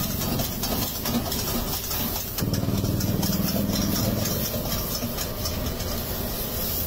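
Street-food wok over a high gas flame: a steady low rushing hum from the burner, with scattered metal clicks of the spatula against the wok.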